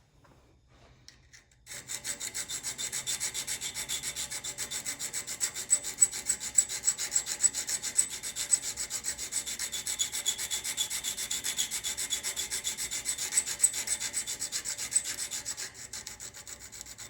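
Diamond hand file rubbing back and forth on the steel of a package opener blade, shaping its tang to fit a T-shank adapter. The rapid, even scraping strokes start about two seconds in and keep going steadily.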